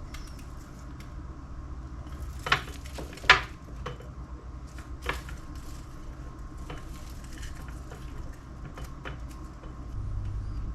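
Dried basil leaves and a glass mason jar being handled as the leaves are packed into the jar: light scattered ticking, with two sharper knocks close together about two and a half and three seconds in, over a steady low hum.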